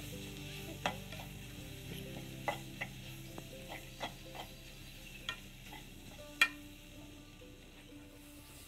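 Chopped onions and chillies frying in coconut oil in a pan with a faint sizzle, as a metal slotted spoon stirs them, clicking and scraping against the pan several times. The sharpest clink comes about six and a half seconds in.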